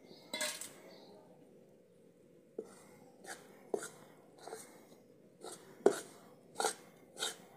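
Steel spoon scraping and knocking against a metal kadhai (wok) while stirring roasted chickpea powder in ghee: irregular sharp clicks and scrapes about once or twice a second, after a short clatter about half a second in.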